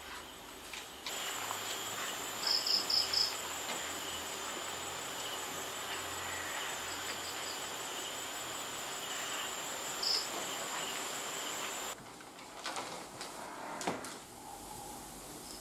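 Night insects, crickets among them, trilling steadily, with a quick run of four higher chirps about two and a half seconds in and one more near ten seconds. The insect sound cuts off abruptly at about twelve seconds, leaving a quieter stretch with a few soft knocks.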